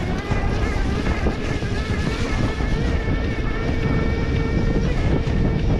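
KuKirin V1 Pro e-bike's electric motor whining steadily under throttle. Wind buffets the microphone, and the bike rumbles over rough off-road ground.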